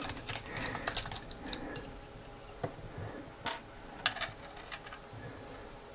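Small scattered clicks and ticks of a precision screwdriver turning the tiny screws in a gimbal motor's plastic housing, and of the loosened parts being handled, with a sharper click about three and a half seconds in.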